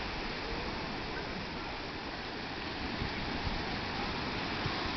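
Steady wash of ocean surf breaking on the beach, with low gusts of wind rumbling on the phone's microphone.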